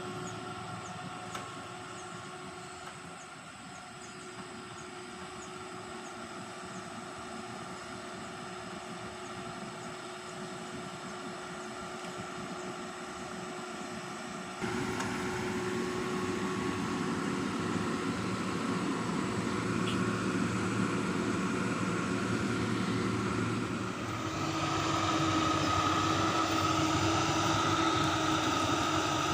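Excavator's diesel engine and hydraulics running steadily under load while lifting a heavy concrete casting, with a steady whine over the engine noise. The sound steps up abruptly in loudness about halfway through and again near the end.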